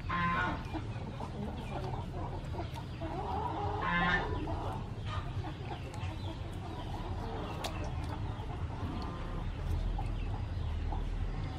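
Chickens clucking. There are two louder calls, one at the very start and one about four seconds in, and softer clucks in between.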